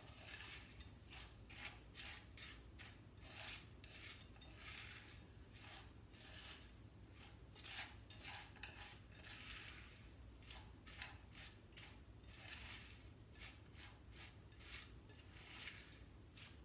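Utensil stirring Wheaties flakes into melted chocolate in a metal saucepan: faint, irregular scraping and clinking against the pan, about one or two strokes a second.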